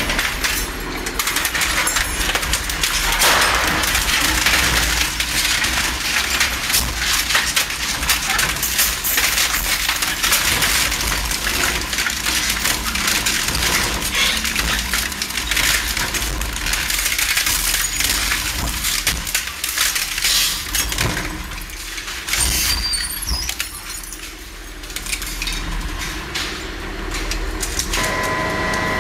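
Industrial twin-shaft shredder, its interlocking hooked cutter discs crushing and tearing through parts in a dense, irregular run of cracks, snaps and metallic clatter. About 28 seconds in the crunching stops and the emptied machine runs on with a steady whine.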